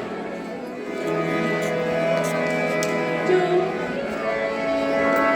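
Instrumental background music with long held notes, coming in about a second in.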